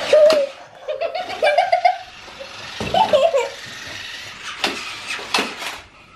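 Children laughing and giggling in short bursts, a toddler among them.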